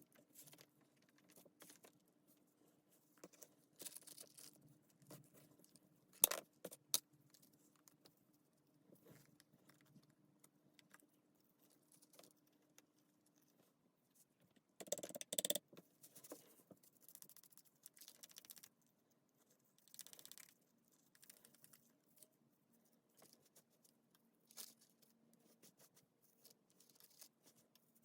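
Small metal parts and tools being handled, with sporadic faint clinks, clicks and rattles, a sharp click about six seconds in and a louder bout of rattling about halfway through.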